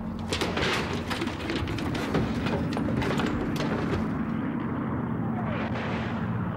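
Continuous low rumble of an artillery bombardment, with dense crackling and clatter for about the first four seconds, after which the sound turns duller.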